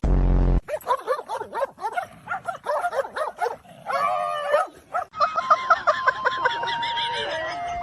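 A dog giving a long run of short, arching yips and whines, like a dog 'talking', after a loud low buzz lasting about half a second at the start. Over the last two seconds, steady tones under the yips step down in pitch.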